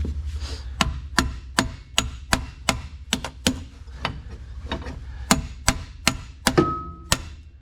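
Hammer blows on metal tractor parts, a quick steady series of about eighteen strikes, roughly two and a half a second, with one blow near the end ringing briefly.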